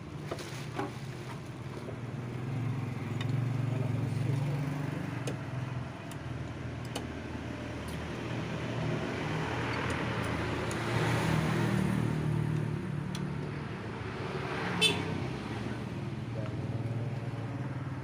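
Road traffic running steadily, with a vehicle passing about ten seconds in and a few light clicks and taps.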